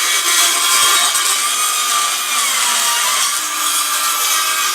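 Power saw cutting freehand through a wooden panel: a loud, steady whine whose pitch sags briefly under load about halfway through.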